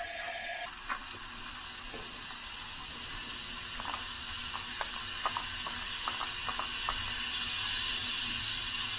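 Compressed air hissing steadily from a two-gauge leak-down tester pressurizing a cylinder of a Subaru EJ25 engine, coming on about a second in and slowly growing louder, with a few light clicks as the tester is handled. The air is leaking out of the sealed cylinder; this cylinder reads about 11% loss.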